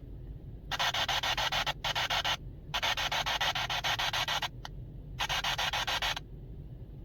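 Electronic static from a ghost-hunting device, coming in four bursts of rapid, chopped hiss with short gaps between them.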